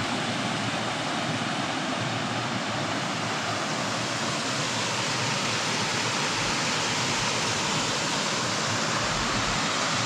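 Water rushing steadily over a small stepped rock cascade on a river, a constant even roar with no change.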